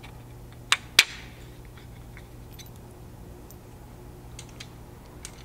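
Two sharp clacks about a third of a second apart as the aluminum roof rack side rail pieces knock together while being fitted, the second the loudest with a brief ring, then a few faint handling clicks over a steady low room hum.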